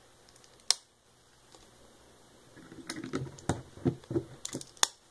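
Plastic Lego bricks clicking and clacking as fingers handle a small Lego safe and work at its top plate: one sharp click near the start, then a run of irregular clicks and taps from about halfway through.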